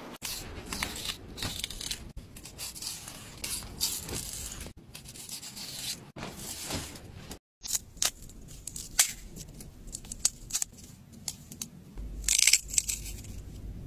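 Crisp cutting, tearing and rubbing sounds of fresh vegetables being handled and cut with a knife, in short bursts broken by two brief silent gaps. Near the end a knife slices through a crisp radish, the loudest cut.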